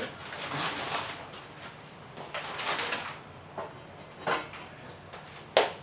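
Metal clunks, scraping and shuffling as a Subaru EJ25 short block is lifted off a workbench and set onto an engine stand, with one sharp metal knock near the end.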